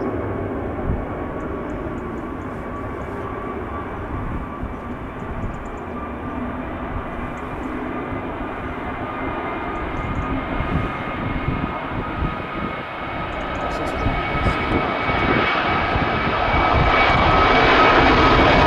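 Airbus A321neo's turbofan engines at take-off power during the take-off roll and lift-off: a steady engine noise with a high steady whine, growing louder over the last few seconds as the jet climbs toward the microphone. Gusty wind buffets the microphone underneath.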